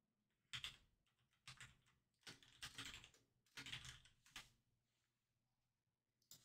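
Faint typing on a computer keyboard in several short bursts of keystrokes with pauses between them.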